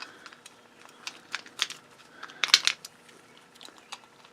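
Scattered light clicks and clinks of small metal parts from a broken-open circuit breaker being handled and sorted. The loudest cluster comes about two and a half seconds in.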